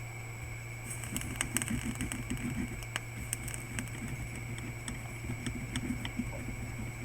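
A printed circuit board being cleaned with isopropyl alcohol: light scratchy rubbing with quick small ticks, busiest for the first few seconds. A steady electrical hum runs underneath.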